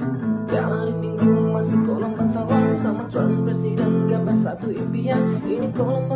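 Music led by acoustic guitar, plucked and strummed, with notes changing every fraction of a second.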